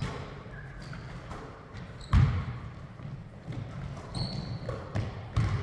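Basketball bouncing on a hardwood gym floor during play, with the loudest bounce about two seconds in and more near the end. Short high squeaks of sneakers and footsteps on the floor come in between, echoing in the large gym.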